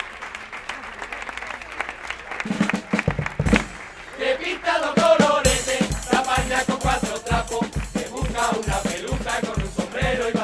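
A carnival group strikes up a song: crowd noise at first, then a bass drum comes in about three seconds in and settles into a steady beat of about two strokes a second. A choir of voices starts singing over it, with a rattling percussion on top.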